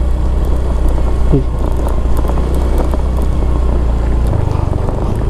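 Motorcycle engine running steadily while the bike is ridden. About four seconds in, the engine note steps up in pitch as the revs rise.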